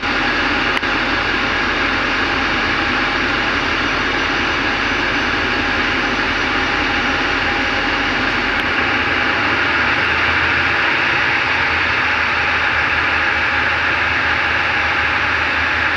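Tugboat engine running steadily, a loud drone with several steady tones, its deepest hum shifting slightly about nine seconds in.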